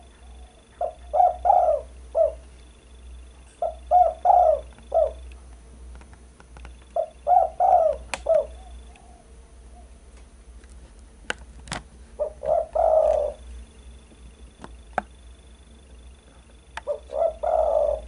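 Spotted dove (derkuku) cooing: five short phrases of three or four low coos each, a few seconds apart.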